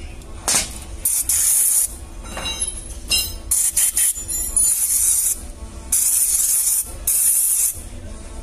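About six short bursts of hissing aerosol cleaner spray, stopping and starting, as the oil-fouled vehicle speed sensor is sprayed clean, with a few light clinks in between.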